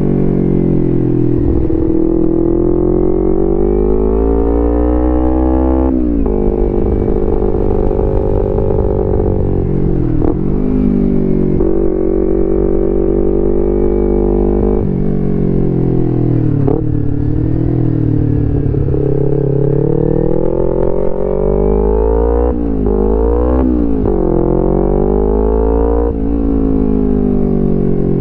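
2011 Kawasaki Ninja 250R's parallel-twin engine running loud through a full Graves racing exhaust under way. The pitch climbs steadily for a few seconds and then drops sharply at each gear change, over and over, with a few quicker rises and falls in revs near the end.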